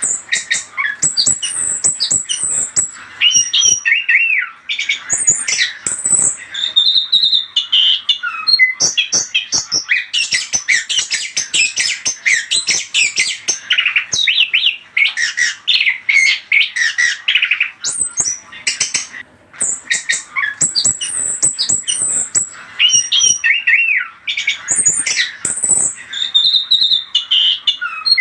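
Orange-headed thrush (anis kembang) singing a fast, varied song of whistled glides and harsh chattering notes, broken by a few short pauses: a lure song meant to get another thrush to answer.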